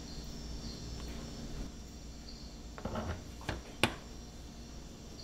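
Steady background of insects chirping. A few short clicks and knocks come about three to four seconds in, the last one the loudest.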